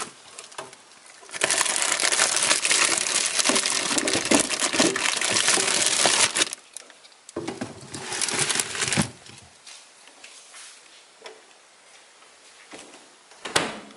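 Plastic produce bags crinkling and rustling as vegetables are rummaged through in a fridge drawer, in two stretches: a long one of about five seconds, then a shorter one.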